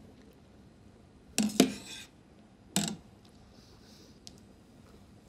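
Wire spider skimmer knocking against the sides of a stainless steel saucepan while stirring pasta in the water. A quick double clank comes about a second and a half in, and another clank just before three seconds.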